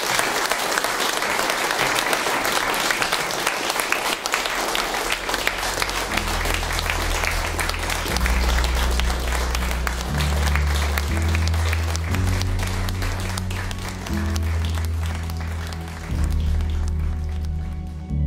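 Audience applauding. About six seconds in, music with deep, held bass notes comes in under the clapping, and the applause thins out near the end.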